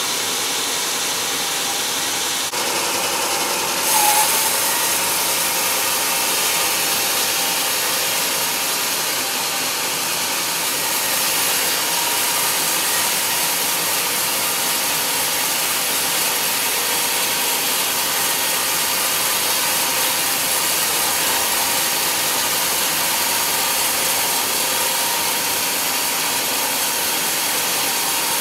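Band sawmill blade cutting lengthwise through a large hardwood log: a steady, loud sawing hiss with the mill's machinery running. There is a brief louder moment about four seconds in.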